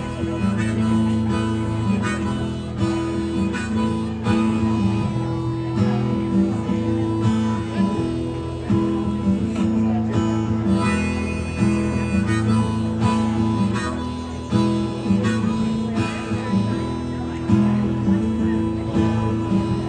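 Harmonica solo of held, changing notes over steady acoustic guitar strumming, an instrumental break in a live song.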